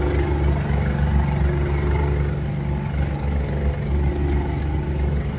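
A ship's engine running with a steady low drone.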